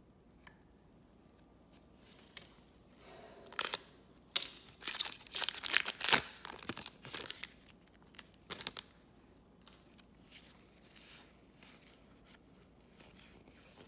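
A trading card pack wrapper torn open by hand, a cluster of sharp crinkling rips about four to seven seconds in, followed by a few light clicks as the cards are handled.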